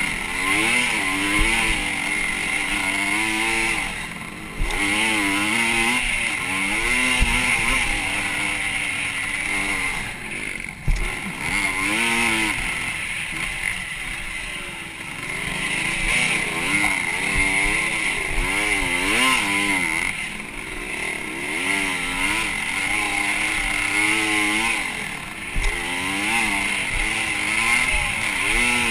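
Motocross dirt bike engine revving up and falling back again and again as the rider works the throttle through the gears, heard close up over a steady wind rush. A sharp knock about eleven seconds in.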